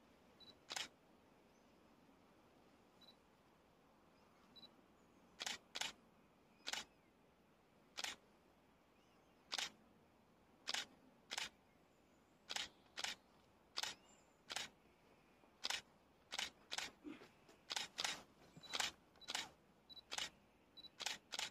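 Faint, short, sharp sounds from a climber moving up a rock boulder problem, irregular at first and coming faster and closer together near the end.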